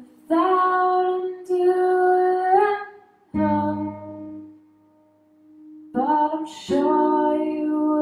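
A woman singing a slow, heartfelt song to her own acoustic guitar: long held sung notes in two phrases, with a pause between them where a strummed chord rings on and fades.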